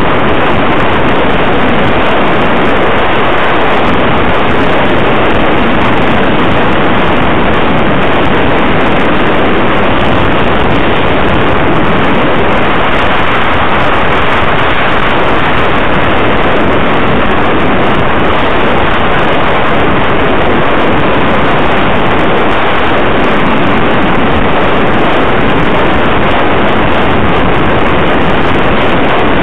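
Loud, steady rush of wind and road noise on the microphone of a camera riding on a moving vehicle.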